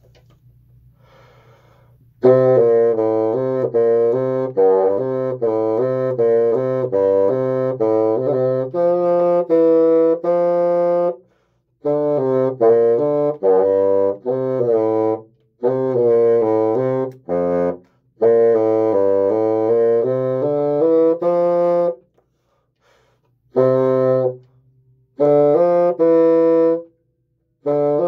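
Solo bassoon playing a melody in phrases of separate notes, broken by short pauses, starting about two seconds in.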